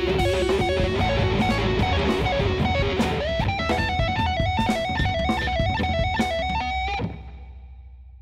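Instrumental outro of an anime ending theme song: guitar carrying the melody over bass and a steady drum beat. It stops on a final hit about seven seconds in and rings away.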